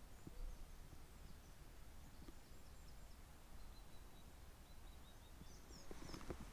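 Quiet outdoor ambience: faint birds chirping high up over a low rumble of wind on the microphone, with a few soft footsteps near the end.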